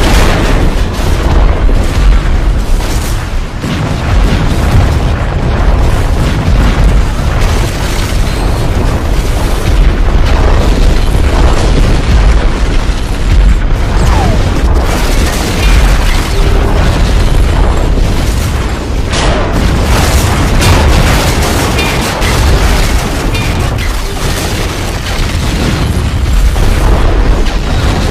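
Repeated loud explosions and booms, one after another, with heavy low rumble throughout.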